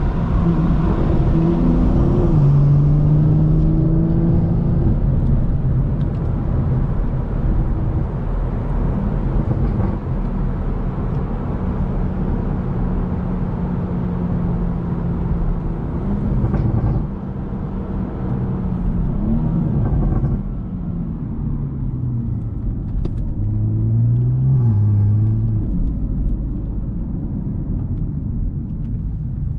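BMW M140i's 3.0-litre turbocharged inline-six engine running while driving, at steady moderate revs over low road rumble. The revs ease off in the first few seconds, then hold steady, with small rises and falls later on.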